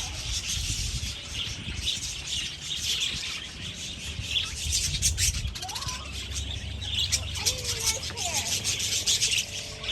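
A flock of budgerigars chattering with dense, continuous high chirps.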